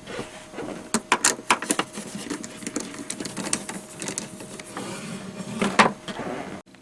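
Close-up handling noise: an irregular run of sharp clicks, taps and rustles of small objects being handled, with a louder cluster early on and a loud knock near the end, then an abrupt cut.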